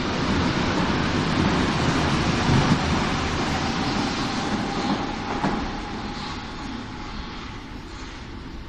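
A Berlin U-Bahn train pulling out of an underground station, its wheels and running gear making a loud rumble with a couple of knocks. The noise fades away from about halfway through as the last car leaves, with a faint steady whine lingering.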